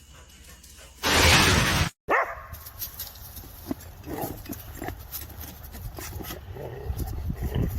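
A loud burst of noise lasting about a second, cut off abruptly, followed by a dog making short whines and yips.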